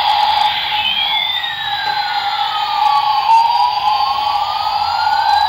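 Battery-operated toy military helicopter's electronic sound effect: a steady buzzing tone with a slow siren-like sweep that falls and rises back over several seconds. Under it is the whir of the toy's motor as it rolls along and turns its twin rotors.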